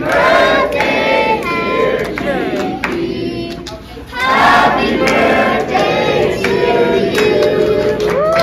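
A group of young people singing together, with several voices holding and sliding notes over crowd noise. The singing drops off briefly just before the midpoint, then comes back louder.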